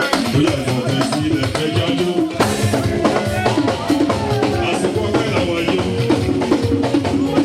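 Church praise music played by a band, with a drum kit keeping a steady beat under a melodic line.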